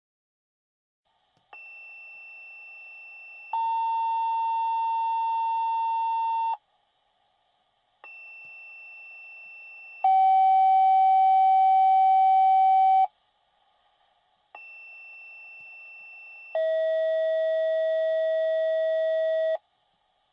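Synthetic electronic alert tones, three rounds of the same pattern: a faint high tone for about two seconds, then a loud steady lower tone for about three seconds. The loud tone is lower in pitch each round, and short silences separate the rounds.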